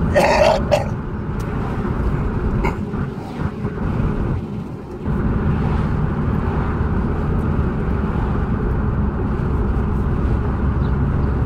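Car interior noise while driving: a steady low engine and road rumble. It quietens briefly about four seconds in, then picks up again about five seconds in.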